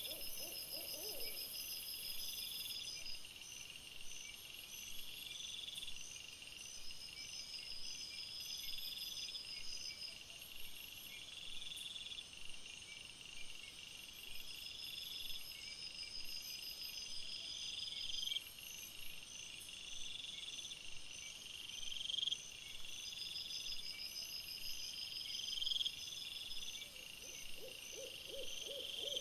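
Night-time insects chirping: a short rising chirp repeats about every two seconds over steady, higher pulsed trills. A short, lower pulsed call sounds in the first second and again near the end.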